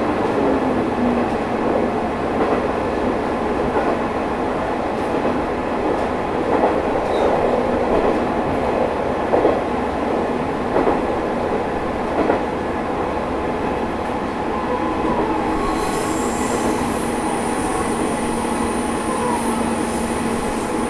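Running sound inside a Matsuura Railway MR600 diesel railcar: a steady rumble of engine and wheels with a few knocks from the track. About three quarters of the way in, a thin high squeal joins in.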